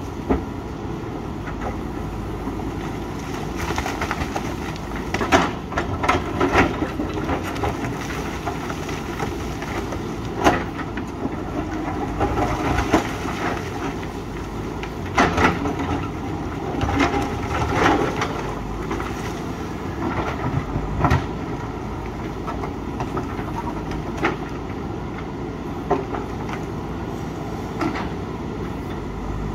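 JCB 3DX backhoe loader's diesel engine running steadily while it works rock, with repeated sharp clanks and scrapes of the bucket against stone, most frequent through the middle.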